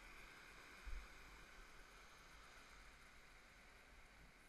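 Near silence: a faint steady rush of flowing river water, with one low bump about a second in.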